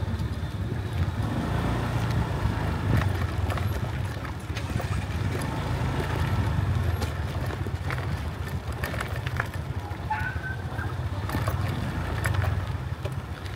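A low rumble of passing motor traffic that rises and falls several times, with scattered clicks and knocks.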